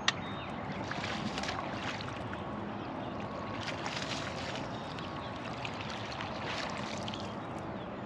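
Steady noise aboard a small fishing boat on the water, with scattered light clicks and knocks and one sharp click right at the start.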